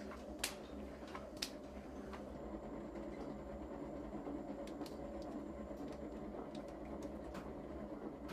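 Steady low rumble of workshop room tone, with a few light clicks in the first second and a half.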